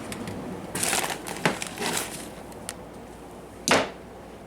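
Rummaging through bodywork supplies: irregular crinkling rustles and light knocks as containers and tubes are moved about, with one sharper clack about three and a half seconds in.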